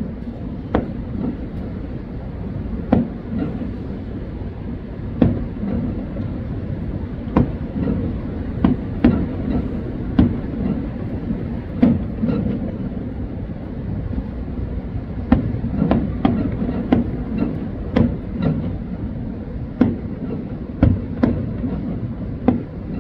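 Aerial fireworks shells bursting: a long run of sharp bangs at irregular intervals, some in quick pairs, over a steady low rumble.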